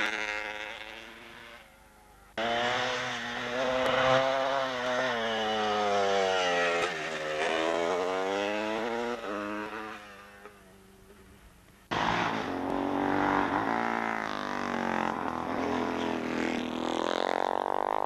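Two-stroke racing motorcycle accelerating hard, its engine note climbing and dropping again and again through the gears. It fades as the bike moves away, then cuts back in sharply twice, about two seconds in and again near twelve seconds.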